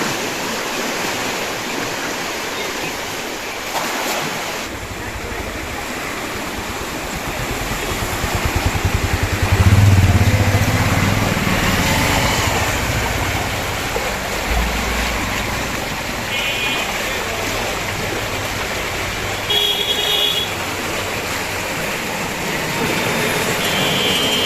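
Steady rush of water from a river sluice gate, with a motor vehicle's engine passing, loudest about ten seconds in, and a few short horn toots in the last third.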